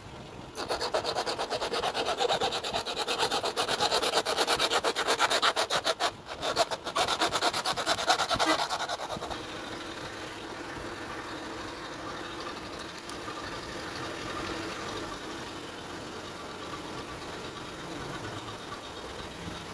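Fast, rasping strokes of a plastic bottle neck being cut through, with a short break about six seconds in; the cutting stops around nine seconds, leaving a quieter steady sound.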